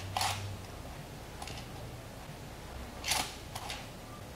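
Short metallic clicks and rattles from an adjustable grow-light lamp holder's sheet-metal bracket being handled and turned over, about four in all, the loudest about three seconds in, over a low steady hum.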